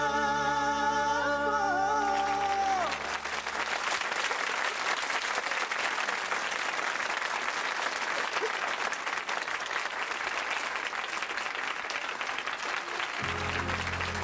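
Two male voices hold the song's last note over accordion accompaniment, ending about three seconds in. A studio audience then applauds steadily for about ten seconds. Near the end an ensemble of accordions and mandolins begins playing.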